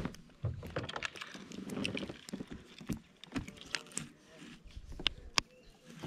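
Irregular clicks, knocks and rustling of a caught largemouth bass being handled in a plastic kayak and clamped in a lip-grip scale, with a few sharper knocks late on.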